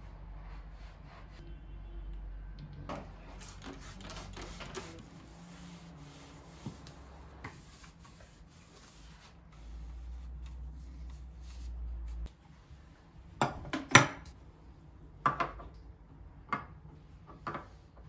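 Soft rubbing and handling noises, then several sharp knocks in the last few seconds, the loudest about two-thirds of the way in: small glass jars being set down on a cabinet shelf.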